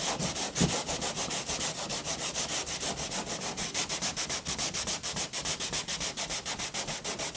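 Coarse sandpaper (80 to 120 grit) being rubbed by hand over cured Bondo body filler on a car panel, knocking the filler down: a fast, even rasping of back-and-forth strokes, about six a second.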